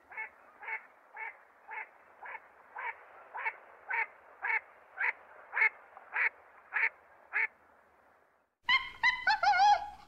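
Wood ducks calling: a regular series of about fourteen short calls, roughly two a second, growing louder over the first seven seconds. Near the end a much louder call with wavering pitch from another animal breaks in.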